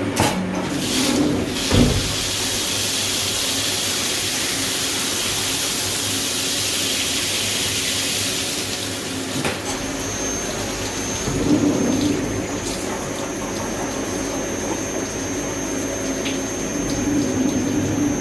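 CNC milling machine running at the start of a cut: a steady rush of coolant for the first half, then about ten seconds in a high, steady spindle whine sets in and holds, with a few light clicks.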